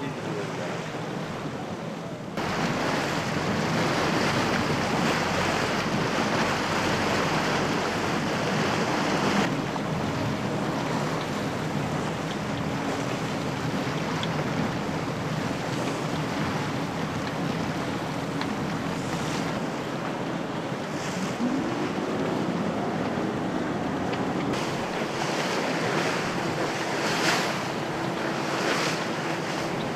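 Wind buffeting the microphone over the rush and slap of choppy sea water around sailing yachts' hulls, changing abruptly at each cut between shots. From about two-thirds through, a faint drone rises in pitch and then holds steady under the wind and water.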